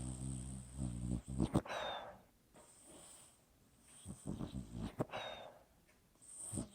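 Dog snoring in its sleep: a long, low snoring breath at the start, followed by further snoring breaths about four seconds in and near the end.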